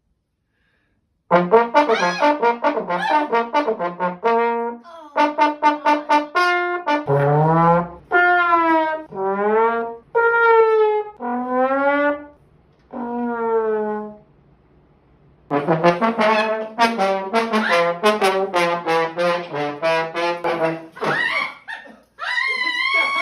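Trombone-like brass notes played as sound effects. A fast run of short notes gives way to several sliding, wavering notes, and after a short pause another fast run of short notes follows.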